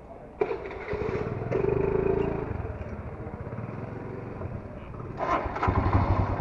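Royal Enfield Himalayan's 411 cc single-cylinder engine started on the electric starter about half a second in, catching and settling to a steady pulsing idle, then revved briefly near the end.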